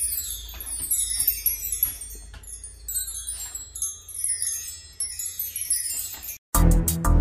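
A bar chime (mark tree) of hanging metal rods swept again and again as a dog pushes its head through them, giving repeated shimmering runs of high tinkling that fall in pitch. Just before the end it cuts off suddenly and music starts.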